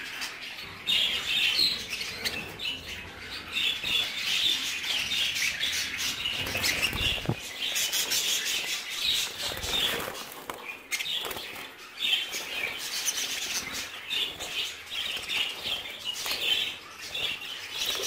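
A flock of budgerigars chattering and chirping continuously, with wings fluttering as birds flap around the cage.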